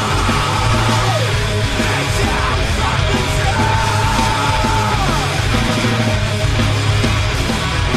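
Loud, heavy instrumental rock music, with guitar notes sliding down in pitch a few times over a steady low bass.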